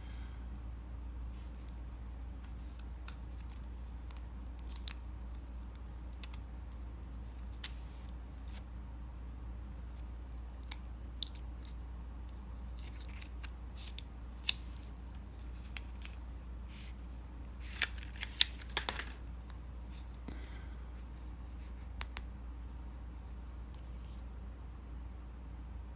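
Hands handling a phone and its packaging: scattered light clicks, taps and small scrapes, with a busier run of handling noise about eighteen seconds in, over a steady low hum.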